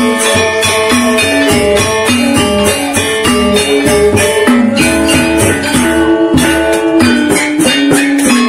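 Sasak saron ensemble playing: rows of saron metallophones struck with mallets, ringing over a hand-played barrel drum and a small kettle gong, in a quick, steady beat.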